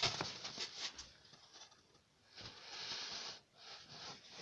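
Close scratching and rustling from puppies scrabbling about and brushing against the phone: a run of quick scratchy clicks in the first second, then two longer rustles in the second half.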